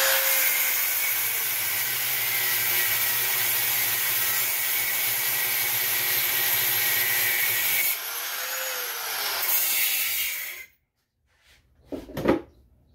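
Handheld rotary tool with a cutoff wheel grinding through a bolt to cut off its head, its motor whining steadily under load. The cut eases about eight seconds in, the tool spins down and stops shortly after, and a single clunk follows near the end.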